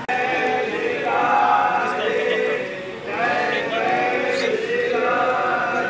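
A group of devotees singing a Hindu kirtan together: long held, drawn-out sung lines in phrases.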